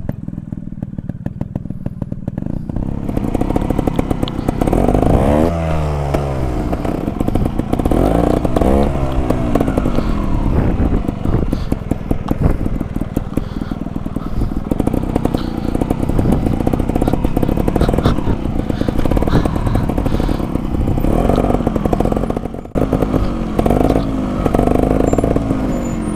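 Engine of a 2008 GasGas 280 two-stroke trials motorcycle running at low speed, with the revs blipped up and down several times, in short rising and falling bursts, during slow tight turns.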